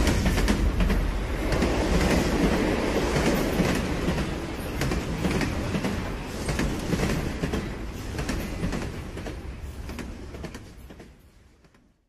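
A heavy rolling rumble with a rapid, irregular clatter of clicks, slowly dying away and then fading out to silence over the last couple of seconds.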